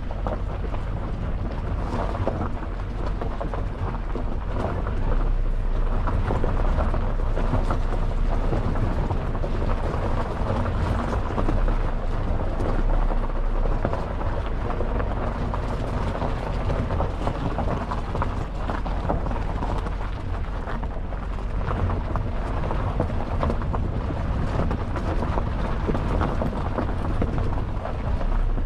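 Peugeot 208 crawling over a rough, rutted dirt section, heard from outside the car: a steady low rumble from the car with a dense crackle of tyres on loose dirt and gravel.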